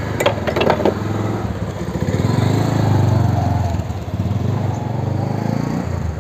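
A small petrol engine running with a rapid low pulse, growing louder about two seconds in and easing off after about four seconds.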